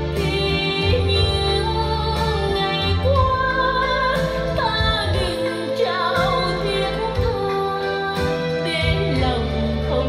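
A song with a singer and instruments, played back through a pair of JBL L100 Century loudspeakers driven by a Marantz 4400 receiver.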